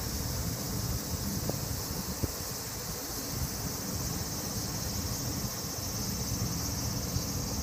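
Steady high-pitched drone of insects, with a low rumble underneath and two faint clicks about a second and a half and two seconds in.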